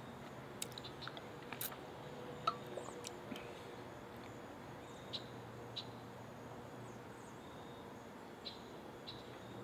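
Quiet outdoor ambience with a few short, faint bird chirps scattered through it over a faint steady low hum.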